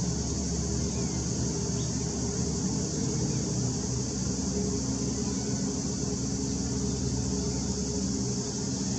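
Cruise vessel Mantalena's engines running underway, a steady low drone with a few even pitches that holds level throughout.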